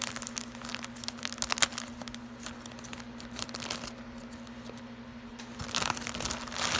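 Packaging being crinkled and torn by hand, with irregular sharp crackles that are busiest in the first two seconds and again near the end. A steady low electrical hum runs underneath.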